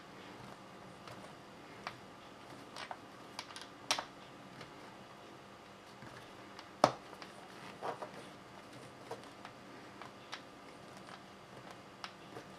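Scattered light clicks and ticks as a wheel nut and washer are threaded and turned by hand on an RC rock racer's wheel hub, irregular, with one sharper click about seven seconds in.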